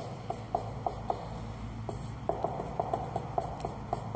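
Marker pen on a whiteboard: a run of short squeaky strokes as dashes and small marks are drawn, a few a second, coming closest together past the middle.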